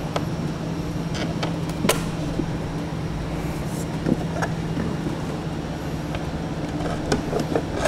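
A few light clicks of bolts, flat washers and lock nuts being handled and fitted into the operating unit's attachment points, over a steady low hum.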